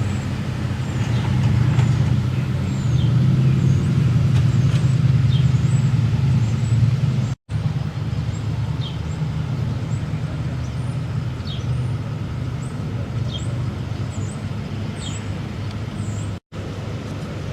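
A vehicle engine running steadily with a low hum, a little louder in the first half, with short high chirps scattered over it. The sound drops out briefly twice.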